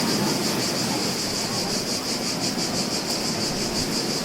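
Beach ambience: a steady wash of sea surf under a high, pulsing buzz from a chorus of cicadas.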